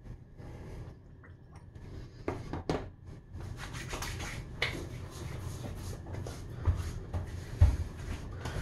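Hands rubbing aftershave into freshly shaved skin of the face and neck: a soft, irregular rubbing, with a couple of light clicks a little before it starts.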